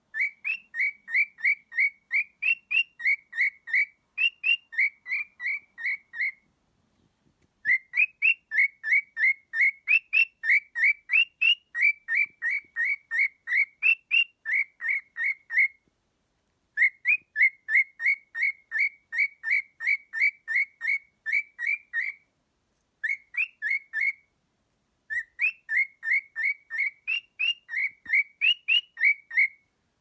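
Cockatiel singing: a fast string of short, clear whistled notes, about three or four a second, with some notes pitched higher, in five phrases broken by short pauses.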